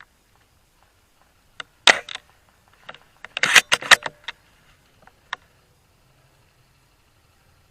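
A series of short, sharp clicks and rattles: a couple about two seconds in, a dense cluster around three and a half to four seconds, and a last click a little after five seconds.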